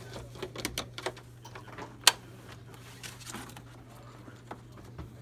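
Computer equipment being unpacked by hand: plastic wrapping and cardboard rustling, with a string of clicks and knocks from parts and cables and one sharp, loud click about two seconds in, over a steady low hum.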